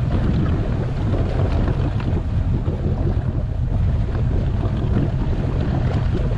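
Wind buffeting the microphone over the steady low running of the tow boat's engine.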